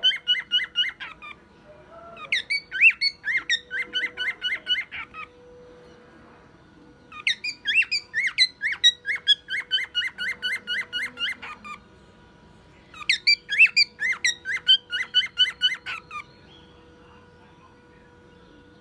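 Male cockatiel whistling a car-alarm imitation. Each phrase opens with a few swooping notes and then runs into a rapid, even string of chirps, about four or five a second. Phrase after phrase comes with short pauses between them.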